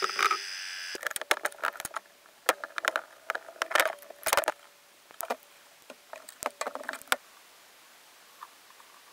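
Irregular sharp metallic clicks and clinks from tools and a spoked wheel being handled during a motorcycle tyre change, dying away after about seven seconds.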